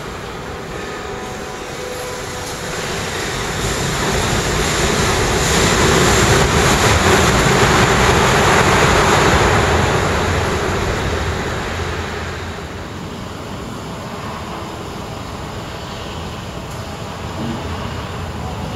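Wuppertal Schwebebahn suspended monorail car running along its overhead steel track: a rolling rumble that swells for several seconds as it passes, then fades back to a steady lower din.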